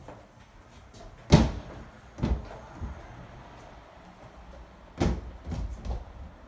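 Kitchen cabinet doors being shut, giving several sharp knocks: the loudest about a second in, another about a second later, and two more near the end.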